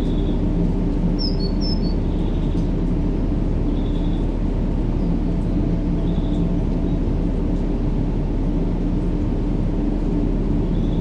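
Steady, low rumbling noise played as sleep sound for a baby, unchanging throughout, with a faint hum in it. A few faint bird chirps sound about a second and a half in.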